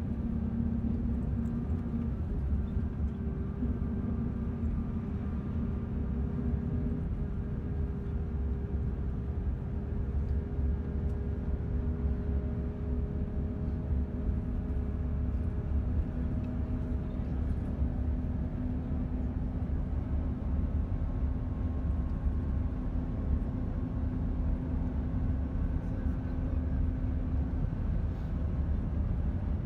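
Engine and road noise inside a moving road vehicle: a steady low rumble with an engine hum whose pitch drifts slowly up and down.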